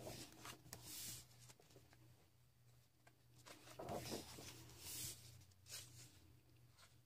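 Pages of a large paperback coloring book being turned by hand: a few soft paper swishes and rustles, the fullest about four seconds in.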